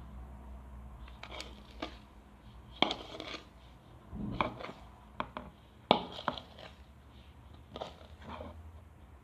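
Irregular clicks, knocks and light clatters of small objects being handled, with sharper knocks about three and six seconds in.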